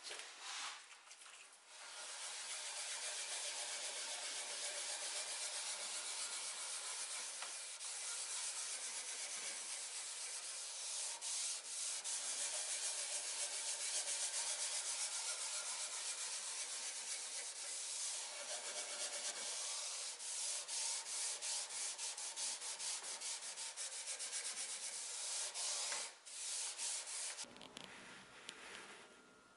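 A pad rubbed by hand over a wooden vanity top, working in a bleach-based stain remover to lift a stain: a steady scrubbing hiss that turns into quick back-and-forth strokes near the end and stops shortly before the end.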